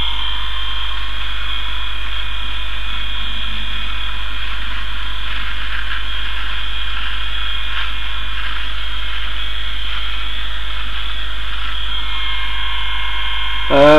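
Electric toothbrush buzzing steadily, one unchanging high-pitched drone.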